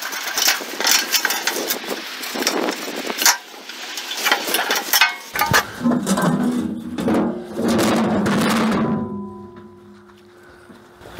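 Sheet-steel belt guard of a circular sawmill's countershaft drive clanking and rattling as it is handled and seated over the pulleys: a run of sharp metal knocks and clicks. About halfway through, background music comes in, with held notes near the end.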